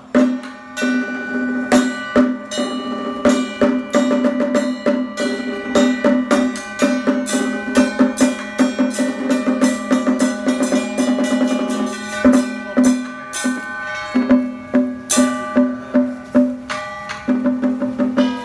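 Taiwanese temple ritual music: a steady held tone with a melody line over it, driven by fast drum, gong and wood-block strikes.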